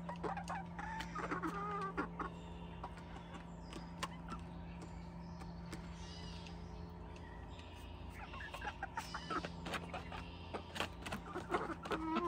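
Backyard hens clucking, with short calls in the first couple of seconds and again near the end, and scattered light clicks between them.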